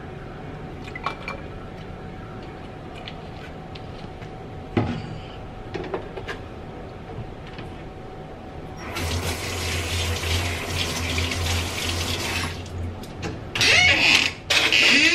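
A few light clinks, then a kitchen tap running into a sink from about nine seconds in, with louder gushes of water near the end.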